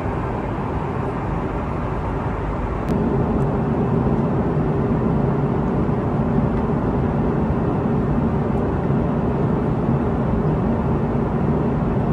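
Steady in-flight cabin noise of an Airbus A330-300 in cruise: engine and airflow noise as an even rumble and hiss. About three seconds in it steps up a little louder, with a stronger low hum.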